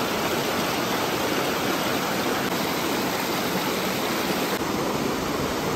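Fast-flowing river rushing over a small waterfall: a steady, even rush of water with no breaks.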